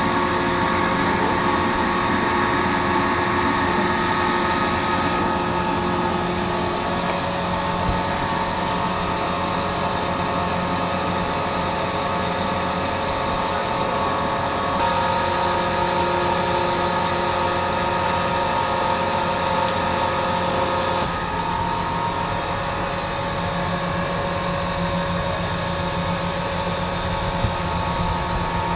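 A steady mechanical drone with several held tones, like an engine or motor running, shifting abruptly a few times.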